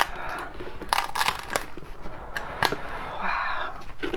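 Handling noise: sharp clicks and patches of crinkling and crackling as a large steamed crab is handled, with one longer crinkly stretch a little after three seconds in.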